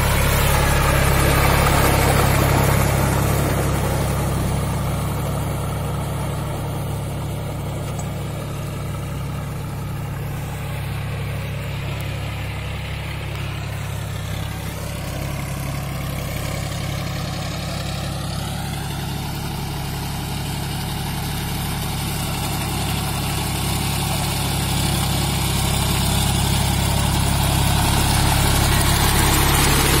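John Deere 5104 tractor's three-cylinder diesel engine running steadily as it drags its cage wheels through a flooded paddy field, puddling the mud. The engine is louder at the start and near the end as the tractor passes close, and fainter in the middle while it works the far side of the field.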